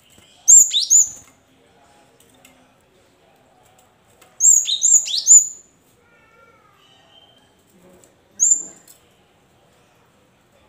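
Cinereous tit (gelatik batu) calling in short bursts of sharp, very high notes, each sliding steeply down in pitch: two notes, then three, then a single note.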